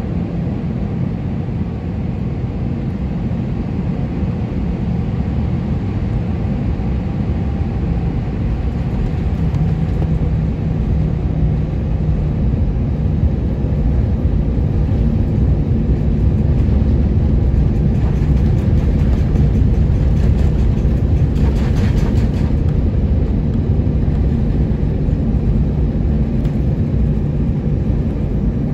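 Airbus A320-200's jet engines running, heard as a steady low rumble inside the passenger cabin while the airliner taxis. The rumble slowly grows louder, and a brief hiss rises over it about three-quarters of the way through.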